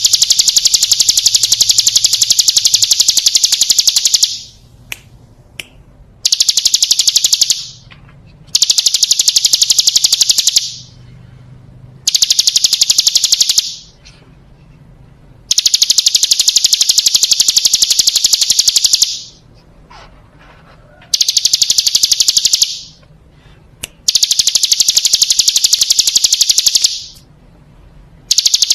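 Hill prinia (ciblek gunung) singing its loud, very fast, high buzzing trill in bursts of one to four seconds, repeated about seven times with short pauses between them.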